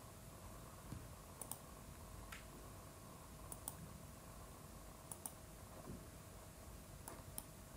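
Faint computer mouse clicks, several in quick pairs, spaced a second or two apart over a low steady background hum.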